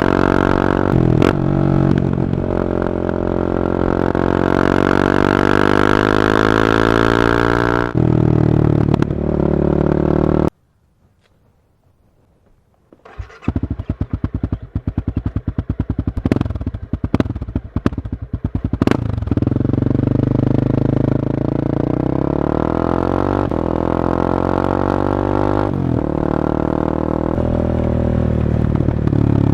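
Honda CB300R's single-cylinder engine running through an Akrapovic carbon exhaust while riding, its pitch climbing under acceleration and dropping at gear changes. About ten seconds in, the sound cuts out almost entirely for a couple of seconds. It comes back choppy and uneven, then settles into a steady run that climbs in pitch again.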